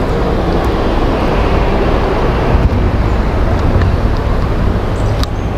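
Steady rumble of road traffic crossing the concrete bridge overhead, with a single sharp click near the end.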